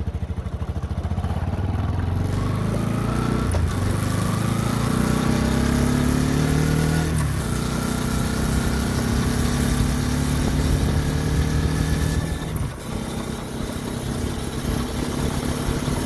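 Bajaj Pulsar NS200's single-cylinder engine pulling the bike along on the road, its pitch climbing twice with a break between, then running steadily, over a rush of wind and road noise. No 'tak tak' knock comes from the chain: the worn, thinned-out front output sprocket has just been replaced with a new one.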